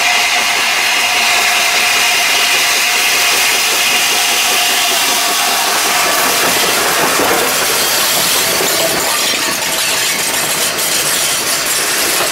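LNER Peppercorn A1 three-cylinder Pacific steam locomotive approaching and passing close by, a steady hiss with held tones until it goes past about six seconds in. Its coaches then roll by on the rails.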